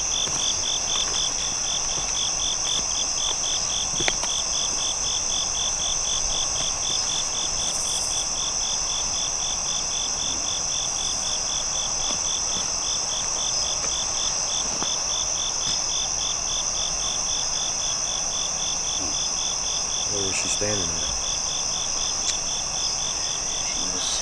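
Night insect chorus: a steady high-pitched drone with a second insect call pulsing about three times a second over it.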